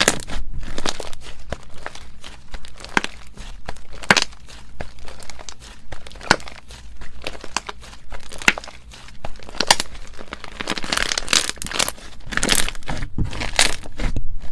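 Slime being squished and poked, giving a run of sharp crackles and pops that grow denser near the end.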